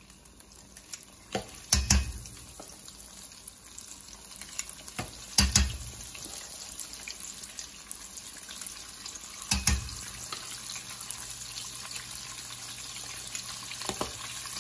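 Hush puppy batter deep-frying in hot oil, a steady bubbling sizzle that grows louder as more scoops go in. A metal batter scoop clacks sharply four times.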